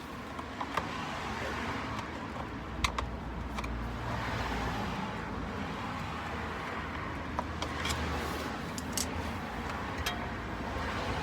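Road traffic going by: a vehicle's tyre and engine noise swells and fades over several seconds. A few light clicks and rattles of small parts being handled sit on top of it.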